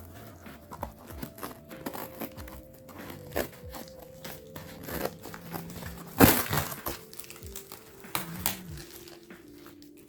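Parcel wrapping being crinkled and torn open by hand: irregular crackling and ripping, with the loudest tear about six seconds in. Faint background music runs underneath.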